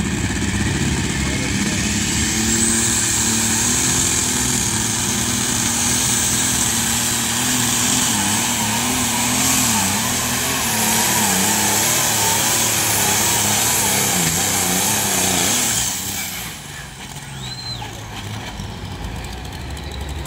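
Pulling tractor's engine running hard under load as it drags a weight-transfer sled down the track, its pitch wavering up and down as it labours. About 16 seconds in the engine throttles back and the sound drops to a lower rumble as the pull ends.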